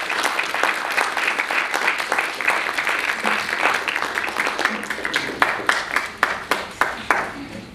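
Audience applauding, a dense run of clapping that thins out to scattered single claps near the end and stops.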